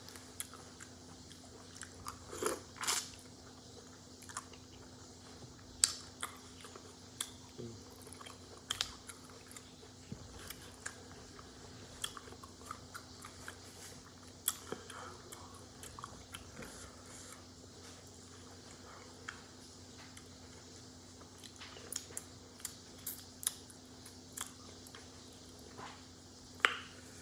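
Close-up eating of a seafood boil: chewing and biting into crab and crawfish, with irregular sharp cracks and clicks as shells are broken and picked apart by hand. The loudest cracks come about three, six and twenty-seven seconds in, over a faint steady hum.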